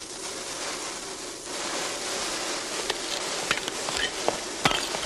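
A lit fuse catching and then fizzing with a steady hiss, with sharp crackles and pops breaking in from about three seconds in as it sputters and throws sparks.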